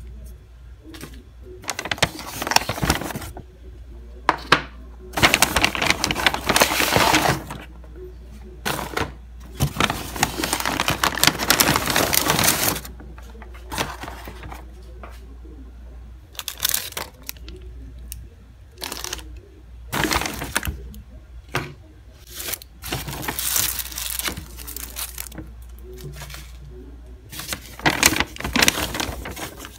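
Brown paper takeout bag rustling and crinkling in irregular bursts as food boxes, plastic cutlery and napkins are handled inside it, over a faint steady low hum.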